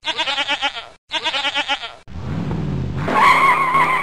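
A goat bleating twice, each bleat about a second long and wavering, then a car engine revving up into a tire squeal.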